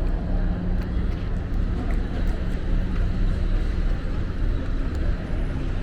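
Street traffic: vehicle engines running with a steady low rumble, with faint voices mixed in.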